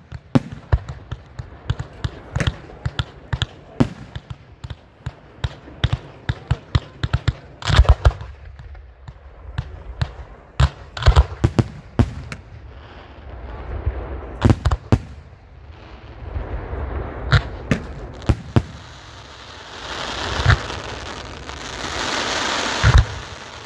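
Fireworks going off: a rapid, irregular string of sharp bangs and pops as shells and multi-shot cakes launch and burst, thinning out around the middle. In the last few seconds a rising rush of hiss takes over as ground fountains fire, with a few more bangs through it.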